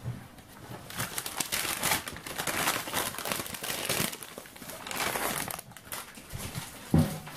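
Baking paper crinkling and rustling as it is gathered up and lifted off a table, with a single dull thump near the end.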